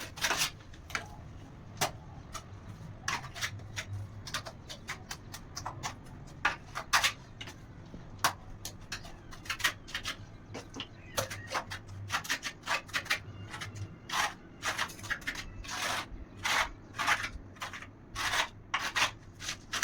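Repeated short, irregular scraping strokes of a mason's trowel working cement mortar during wall tile fitting.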